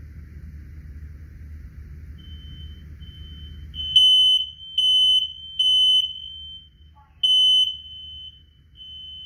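Smoke alarm sounding a high beep in the three-beep temporal pattern of a fire alarm. Faint beeps begin about two seconds in; about four seconds in it turns loud, with three beeps, a pause, then another beep, and the beeps grow fainter near the end.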